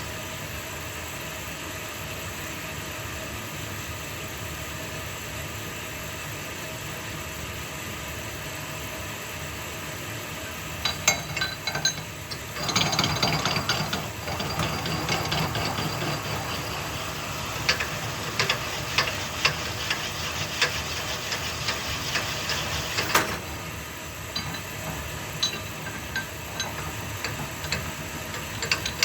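Connecting-rod honing machine running with a steady motor hum. From about eleven seconds in, metal clinks and a rasping grind as a Ford 302 rod's big end is worked over the honing stone, roughing the bore toward size and cleaning out factory machining marks.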